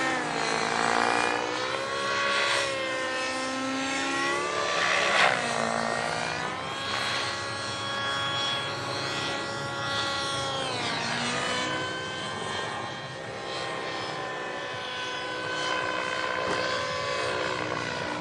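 Align T-Rex 700 radio-controlled helicopter in flight: the whine of its rotor and drive rises and falls in pitch again and again as it manoeuvres.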